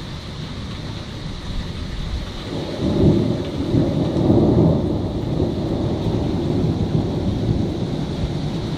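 Thunder rumbling over steady rain. The rumble swells about two and a half seconds in, is loudest for the next two seconds, then rolls on more quietly.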